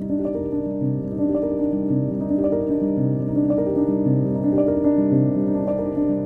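Intro theme music: a piano-led tune with sustained notes and new notes struck about once a second in a steady, repeating pattern.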